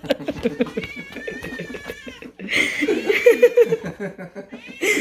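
Pet cats meowing loudly for food: three long, drawn-out meows, one after another.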